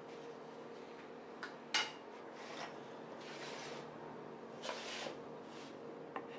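Thin wooden slats and a flat board handled on a wooden work table: a few light wooden knocks, the sharpest just under two seconds in, and soft scraping as wood slides over the tabletop.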